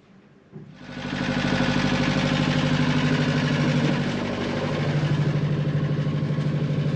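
A sailboat's inboard engine running steadily, charging the flat batteries. It comes in abruptly about half a second in, and its note shifts slightly about four seconds in.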